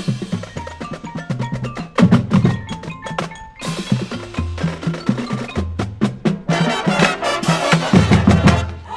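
High school marching band playing a percussion-heavy passage: rapid drum strikes and short pitched mallet-percussion notes over low sustained bass notes. Cymbal crashes come right at the start, again about three and a half seconds in, and as a longer bright wash over the last two seconds or so.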